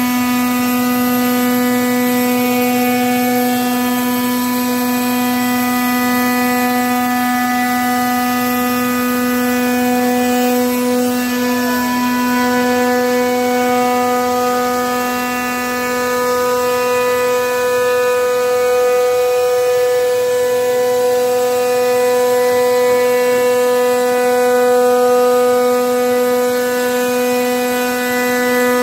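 CNC router spindle running at speed as its bit routes grooves into a wooden door panel, giving a loud, steady, unchanging whine.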